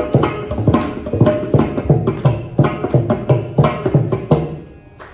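Mridangam playing the closing strokes of a Carnatic piece: deep bass thumps about two to three a second under sharper treble strokes, dying away about four and a half seconds in.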